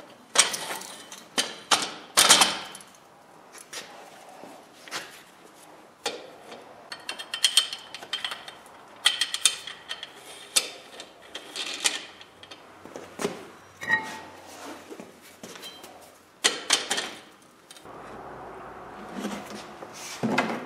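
Cast-iron car brake discs clanking and scraping against a steel pipe and against each other as they are handled and slid onto it: a string of irregular metallic knocks, the loudest in the first few seconds.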